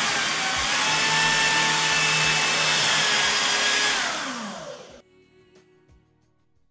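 A motor-driven machine running with a loud, even rushing hiss. About four seconds in it winds down, its pitch falling as it fades, and it stops about a second later.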